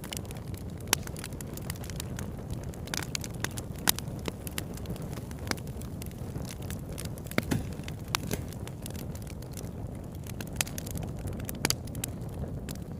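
Bonfire burning: a steady low roar of flames with irregular sharp crackles and occasional louder pops of the burning wood.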